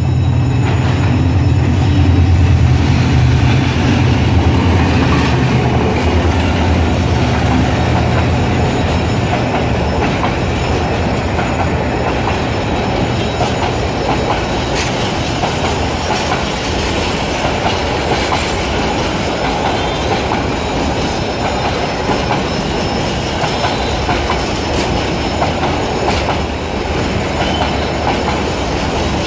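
A GM-EMD GT18LA-2 diesel locomotive passes close by, its engine's low drone loudest for the first several seconds. Then a long rake of intercity passenger coaches rolls past with a steady rumble and clatter of wheels on the rails.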